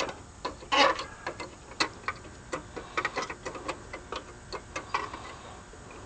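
Irregular light plastic clicks and taps from an AC disconnect box as its pull-out block and cover are handled and fitted back in, with a brief scrape about a second in.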